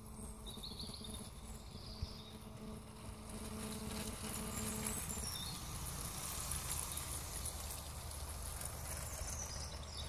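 Battery-powered LEGO train running on plastic track: a thin motor buzz and the rattle of its wheels over the track joints, growing louder as it passes close in the middle and fading as it moves away.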